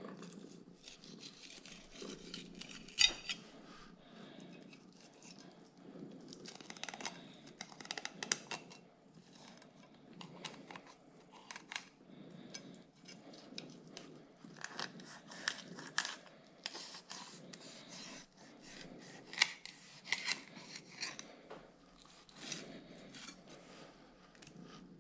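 Fillet knife cutting a striped perch into fillets: irregular short crunching strokes as the blade works through skin and flesh, with a few sharper clicks.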